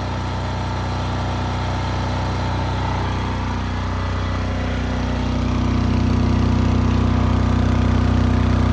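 Air-cooled single-cylinder diesel engine of a Chinese generator, a copy of the Yanmar L100, running steadily under heavy electrical load near its rated output. It gets louder about five and a half seconds in.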